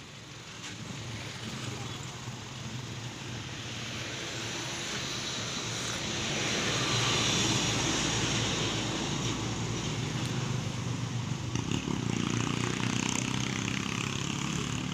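An engine running steadily, growing louder over the first half and then holding.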